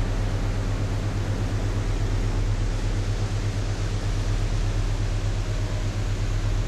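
Steady low drone of a river cruise ship's engines and machinery with a constant hiss over it, unchanging throughout.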